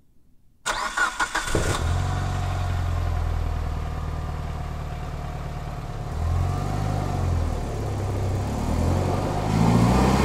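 Mitsubishi Lancer Evolution's turbocharged 2.0-litre four-cylinder engine cranking and catching under a second in, then idling steadily. It is revved briefly twice in the second half, pitch rising and falling each time.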